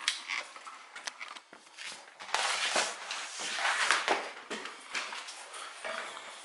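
Footsteps and knocks as someone moves through a cluttered room, with a couple of loud seconds of rustling, scraping noise in the middle.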